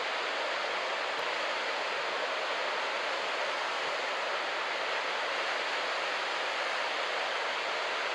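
Steady rushing noise of breaking surf and wash at a beach break, with no single wave standing out.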